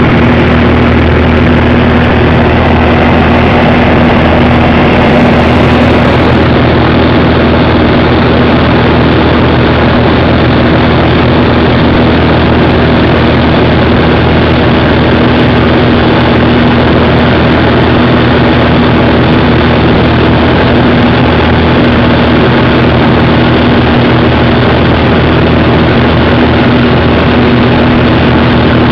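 Single-engine piston aircraft's engine and propeller running steadily at cruise power in formation flight, heard loud from the cockpit as a constant drone with rushing air noise.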